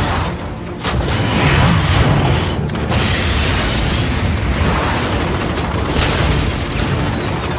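Explosions and heavy booms in a dense, loud film battle mix, with new blasts about a second in and again near three and six seconds.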